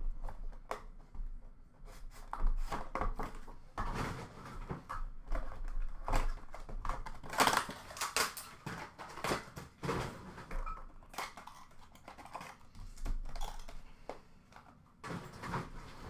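Hands opening a sealed hockey trading-card box and handling the cards: irregular rustling, crinkling and small clicks of cardboard, wrapping and card holders.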